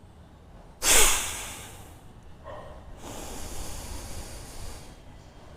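Bhastrika pranayama breathing through the nose: one sudden, forceful breath out about a second in, fading quickly, then a long, steady breath in through the nose.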